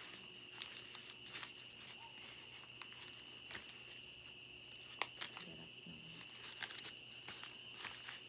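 Crickets keep up a steady high trill throughout, with scattered light clicks and rustles from plants and packaging being handled. The sharpest click comes about five seconds in.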